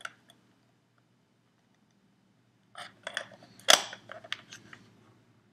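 Clicks and rustling from handling a DSLR camera body and its packaging, starting after a couple of seconds of near quiet, with one sharp click about halfway through.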